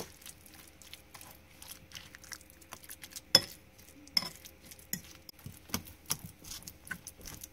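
White plastic fork stirring mashed avocado and seasonings in a bowl: irregular clicks and scrapes of the fork against the bowl, the sharpest about three and a half seconds in.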